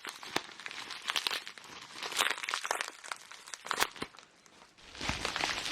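Crinkling and rustling of packaging with scattered clicks as boxed parts are slid out of an RC kit box, briefly quieter a little past four seconds.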